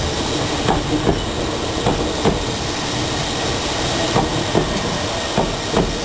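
Meitetsu 7000 series Panorama Car electric train running past along the platform: a steady rumble, with wheels clacking over the rail joints in pairs about half a second apart.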